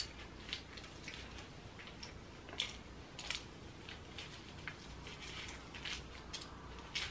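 Aluminium foil being folded by gloved hands around a lock of bleach-coated hair while foiling highlights, giving faint, irregular crinkles and crackles.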